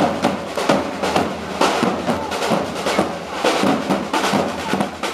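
Parade drums of a flag-wavers' corps playing a rhythm of sharp, closely spaced strokes.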